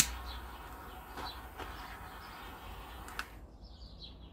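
A sharp click, then a steady hiss for about three seconds that ends with another click, while birds chirp faintly in the background.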